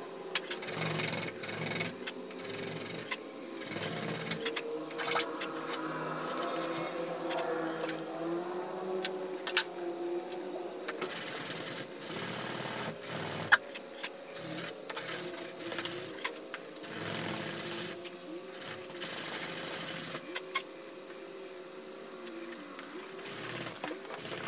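Knife-handle pieces being shaped by hand with an abrasive, in irregular scraping strokes that stop and start. A faint steady hum runs underneath.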